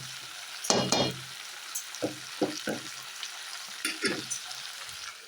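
Chicken and tomatoes sizzling steadily in a hot pot, with a few short clatters of a utensil or lid against the pot.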